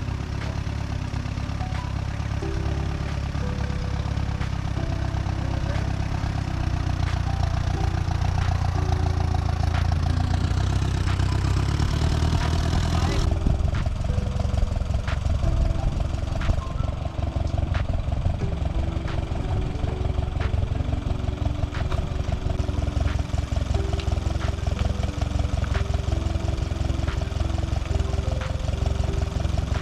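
Portable sawmill's engine running steadily, with an abrupt change in the sound about halfway through.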